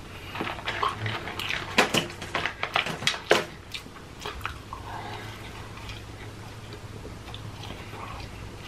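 Close-up eating sounds of a person chewing french fries: a quick run of wet mouth smacks and clicks over the first few seconds, then quieter chewing.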